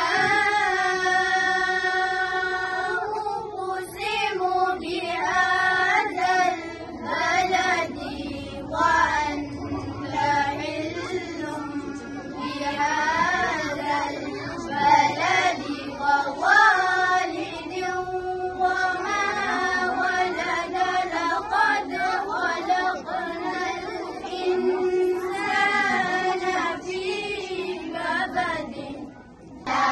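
A small group of young girls singing a naat together into a microphone, opening on a long held note and then carrying a flowing, ornamented melody.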